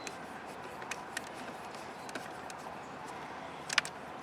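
Steady faint outdoor background noise with a few light clicks and one sharp click near the end, from a Phillips screwdriver working at the small screws that hold a VW power window switch in its trim panel.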